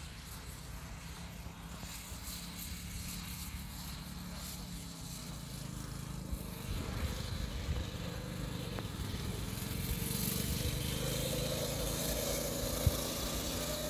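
A small vehicle's motor running as it is driven, steady at first and getting louder, with a whine that rises in pitch over the last few seconds. A single sharp click near the end.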